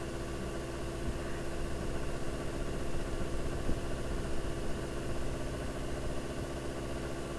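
Steady background hum: a constant low drone with a steady tone, running evenly throughout with no distinct events.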